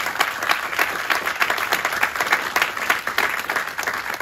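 Audience applauding: many people clapping steadily together at the end of a talk.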